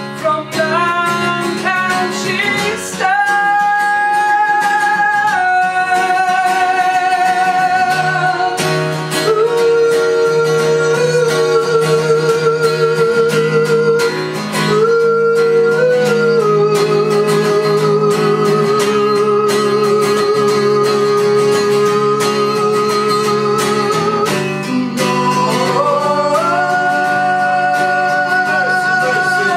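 Woman singing long held notes with vibrato, each lasting several seconds, over a strummed acoustic guitar.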